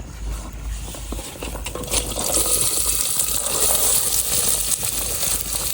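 Chopped onions going into hot oil in a cooking pot: a few light clinks, then a steady sizzle of frying starting about two seconds in.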